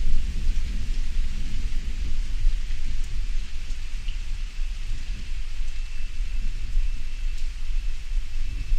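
Rain hissing steadily over a low, rolling rumble of thunder. A faint thin high tone comes in about halfway through.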